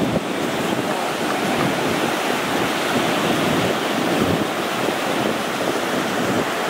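Ocean surf breaking steadily on a sandy beach, with wind buffeting the microphone.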